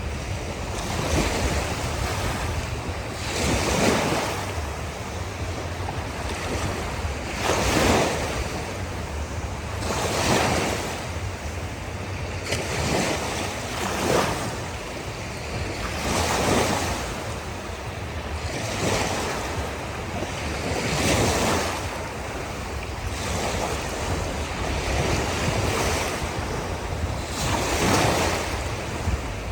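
Ocean surf washing onto a beach, each wave swelling and fading every two to four seconds, over a steady low wind rumble on the microphone.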